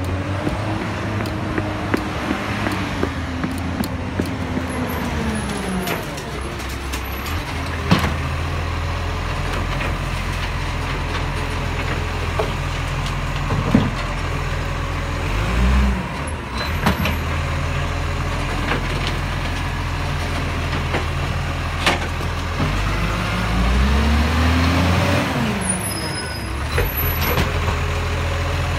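Side-loader garbage truck's diesel engine running while its automated arm grabs, lifts and tips a wheelie bin, with a rising and falling whine from the arm's hydraulics near the start and again near the end. A few sharp knocks sound in between.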